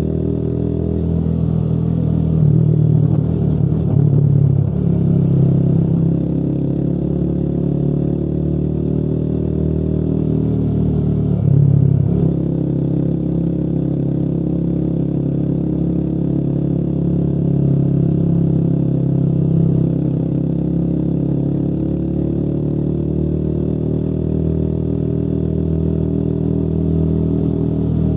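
Motorcycle engine running under way, its note mostly steady with gentle rises and falls in pitch and a brief change in the note about twelve seconds in.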